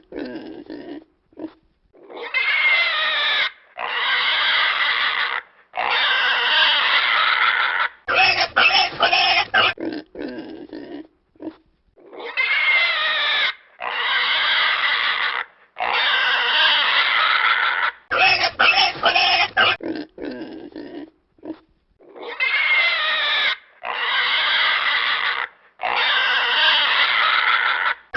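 Pigs squealing: clusters of short, rapid calls alternate with long, drawn-out high squeals whose pitch wavers, three in a row. The same sequence repeats about every ten seconds, as a looped sound effect.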